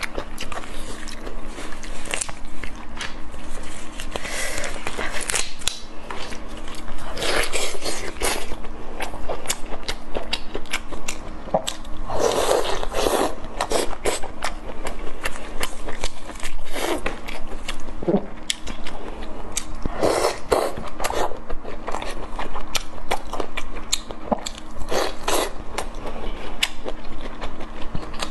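Close-miked eating sounds of large cooked prawns: shells crackling and snapping as they are peeled by gloved fingers, then bites and wet chewing, as a dense run of short clicks and crackles with a few longer wet, noisy stretches.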